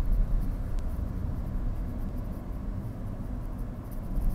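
Car driving on a city road, heard from inside the cabin: a steady low rumble of engine and tyre noise.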